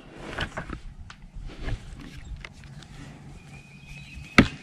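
Steel wrench clicking and knocking against a brass ball valve and hose adapter as the threaded fitting is gripped and tightened: a few light clicks, then one sharp metallic click near the end.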